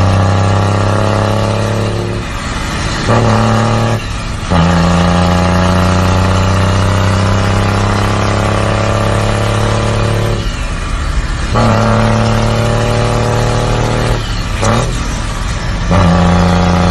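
Heavy truck's diesel engine running loud and steady under load. The note breaks off briefly several times and comes back each time at a slightly different pitch.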